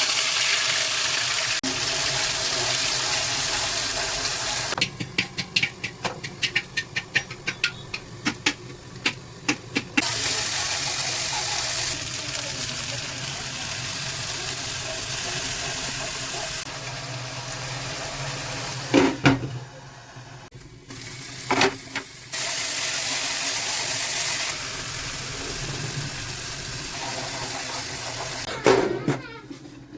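Water running from a tap into a vessel, starting and stopping in long stretches. Between the runs come a quick series of light knocks, about three a second, and a few louder clatters of utensils.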